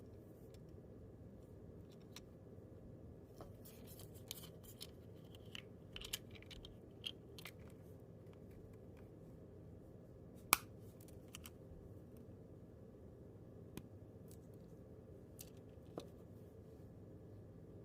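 Small clicks, taps and scrapes of a plastic GM key fob case being handled during a coin-cell battery change, with one sharp click about ten seconds in, over a steady low hum.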